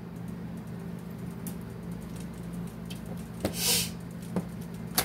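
Tarot cards being handled: a few faint clicks, a brief rustle about three and a half seconds in and a sharper one at the very end, over a low steady hum.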